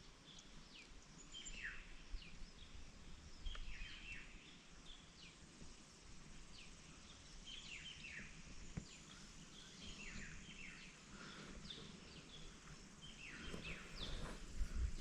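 Faint chorus of birds chirping: many short, quick falling notes repeating throughout, over a low outdoor background rumble.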